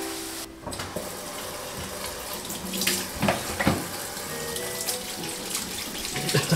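Kitchen tap running into a stainless-steel sink while hands wash under the stream, with a couple of short knocks about three seconds in. Soft background music plays over it.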